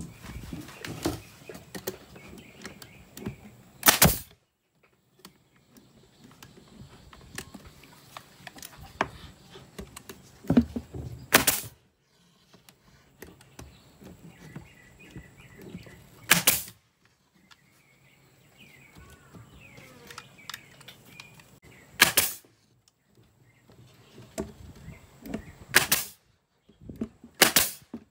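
Pneumatic nail gun firing nails into plywood shelf panels: six sharp shots several seconds apart, the last two close together near the end, with handling and shuffling noise in between.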